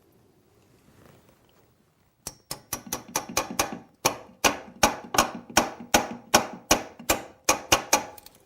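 Hammer tapping a Lie-Nielsen drawer lock chisel in quick, sharp blows, about four a second, starting about two seconds in, as the chisel chops waste out of a lock's strike mortise in wood.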